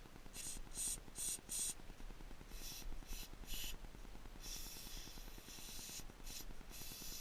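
Aerosol carburetor cleaner sprayed in short hissing bursts to clean the jets: four quick bursts, three more, a longer spray of about a second and a half, then two more short ones.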